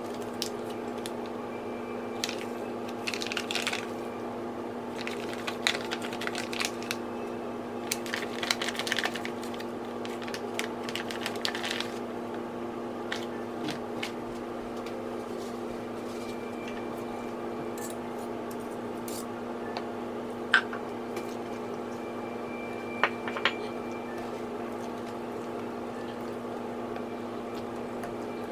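Grated cassava being stirred into a runny egg-and-milk batter in a glass bowl: wet squishing strokes through the first half, then a few sharp clicks of a metal utensil against the glass. A steady low hum runs underneath.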